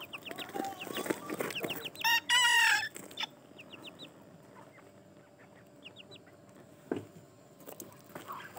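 Serama bantam rooster giving one short, high crow about two seconds in, its territorial call. Soft clucks and short high chirps from the chickens come before and after it.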